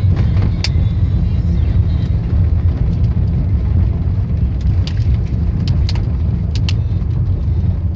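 Road noise heard inside a moving car's cabin: a steady low rumble of engine and tyres on a rough rural road, with a few sharp clicks, bunched between about five and seven seconds in.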